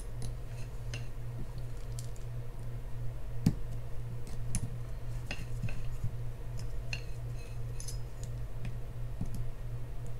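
Small scattered clicks and light metallic taps as a pick and parts are worked inside the spool of a Penn Spinfisher 6500SS spinning reel, one sharper click about three and a half seconds in, over a steady low hum.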